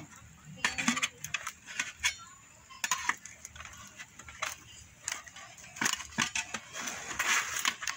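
Aluminium foil cake trays clinking and crinkling as they are handled: a string of sharp, irregular clicks and scrapes, with a longer crinkling rustle about seven seconds in.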